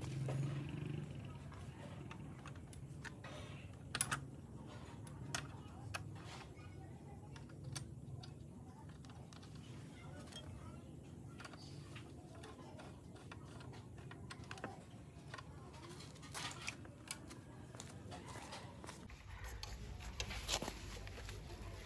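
Scattered light clicks and taps of workshop handling, irregular and a few seconds apart, over a low steady hum that changes about nineteen seconds in.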